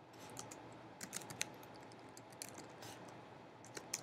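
Typing on a computer keyboard: faint, irregular key clicks in short runs.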